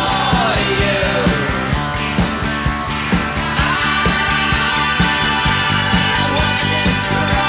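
Rock music with electric guitar and a steady drum beat, between sung lines.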